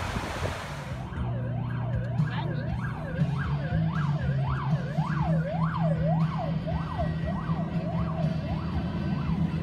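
Rushing floodwater for about the first second, then an escort vehicle's siren sweeping up and down about twice a second over the steady low drone of heavy mining dump trucks' diesel engines.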